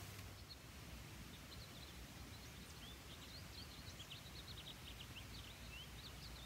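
Faint twittering of an American goldfinch singing in a tree: a run of rapid, short high chirps starting about half a second in, over a low rumble of wind.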